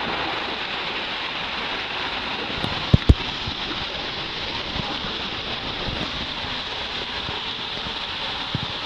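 Steady rushing of water running down a water-park tube slide, with two sharp knocks in quick succession about three seconds in.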